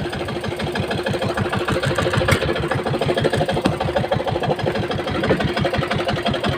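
Small engine of a motorized outrigger fishing boat (bangka) running steadily, its evenly spaced firing pulses giving an even beat.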